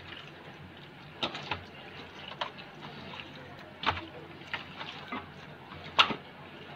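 Hands squelching and slapping chicken pieces in a thick yogurt-and-spice marinade while kneading it in. The squishes come irregularly, a few seconds apart, with the loudest about six seconds in.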